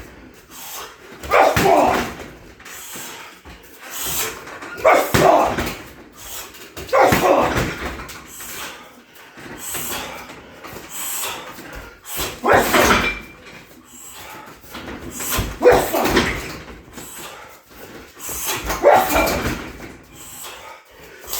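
Strikes landing on a 60 kg heavy bag, one every two to three seconds, each thud paired with a loud shouted grunt from the fighter.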